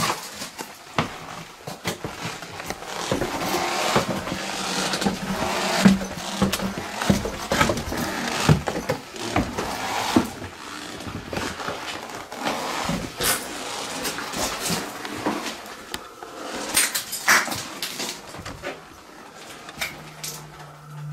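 Footsteps, creaks and scuffs of someone making their way down a debris-strewn staircase, with scattered knocks and clicks. A low steady hum starts near the end.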